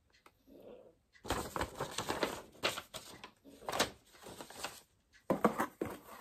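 Paper and plastic packaging rustling and crinkling, with many small clicks and taps, as sheets of paper and the contents of a quilt kit are handled.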